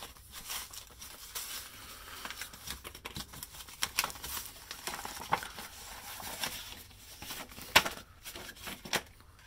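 Mailer envelope being torn open by hand: irregular crinkling and tearing with scattered sharp crackles, the loudest about eight seconds in.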